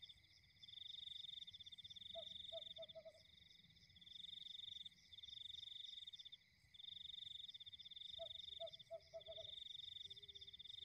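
Faint night chorus of frogs: a high pulsing trill that goes on in long stretches with short breaks, and a quick run of about five low croaks about two seconds in and again about eight seconds in.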